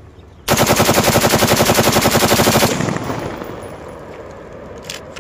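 M4 rifle firing one long fully automatic burst of about two seconds, a rapid, even string of shots that stops abruptly, followed by echo dying away off the surrounding hills.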